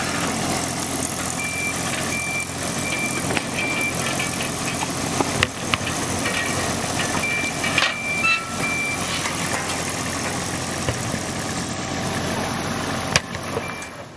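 Engine of a tracked sod-installing machine running steadily, with a tractor's engine behind it. Two runs of short, evenly spaced high beeps come through, and a few sharp clanks, the loudest near the end.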